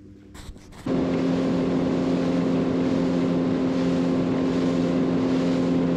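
A small boat's outboard motor running at a steady cruising speed, with wind and water rush. It starts suddenly about a second in and stays even throughout.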